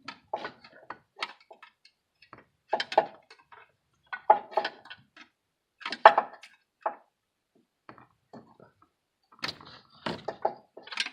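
Screwdriver prying at a plastic wiring-harness connector and its lock on an alternator: irregular clicks, knocks and scrapes in short clusters.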